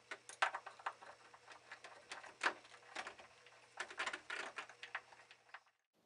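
Hand screwdriver driving screws into a steel door hinge: faint, irregular clicks and short scrapes of the driver and screws against the metal hinge leaf.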